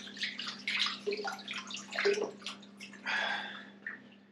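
Hands being washed under a running kitchen tap: irregular splashing and dripping of water in the sink, over a steady low hum.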